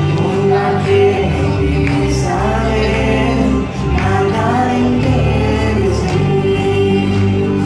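A song: singing into a microphone over sustained instrumental backing.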